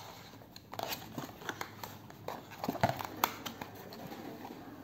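Hands opening the flaps of a paperboard product box: a string of light paper scrapes, rustles and taps, the sharpest a little before the middle.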